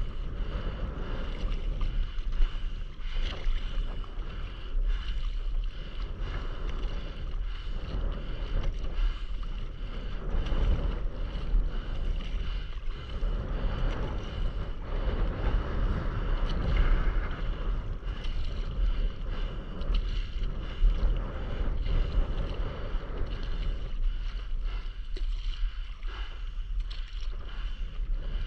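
Wind buffeting the microphone over the splash and lap of water as a stand-up paddleboard is paddled across the sea.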